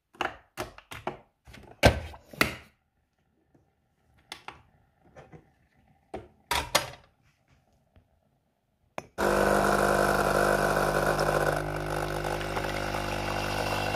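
Coffee pad machine: a few knocks and clicks as the pad is set in its holder and the machine is closed and the cup placed, then about nine seconds in the pump starts with a loud, steady hum while coffee pours from the twin spouts.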